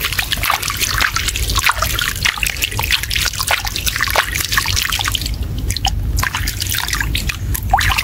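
Water splashing and dripping in many small, irregular splashes over a steady low rumble.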